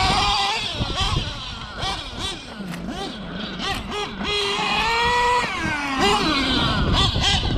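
Novarossi .28 two-stroke nitro engine of a 1/8-scale Losi 8ight XT truggy, revving up and down repeatedly as the truck is driven, its pitch rising and falling with the throttle. It is quieter near the middle as the truck runs further off.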